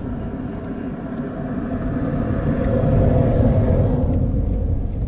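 A motor vehicle passing by: a low rumble that swells to its loudest about three seconds in and then fades away.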